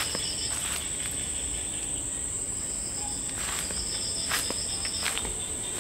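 Night insects calling: a steady, high-pitched insect drone, with a second insect trilling in two spells, once at the start and again from about three and a half seconds in. A few footsteps land on the forest path.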